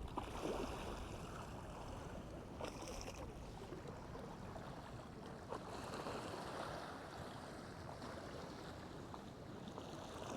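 Waves and channel water washing against a jetty: a steady rush of water, with a few faint clicks.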